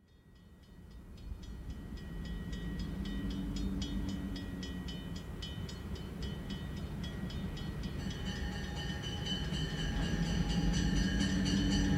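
EMD BL2 diesel locomotive approaching under power, its 16-cylinder 567 engine a steady low rumble that grows louder as it nears, with a grade crossing bell ringing rapidly and a second bell joining about eight seconds in.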